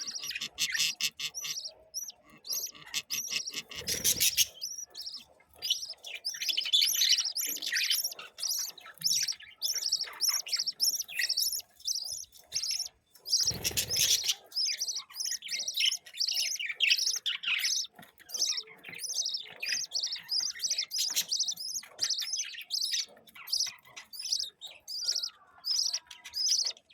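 Budgerigars chirping and warbling in a rapid, continuous chatter, with two short rushing noises about four seconds in and again near fourteen seconds.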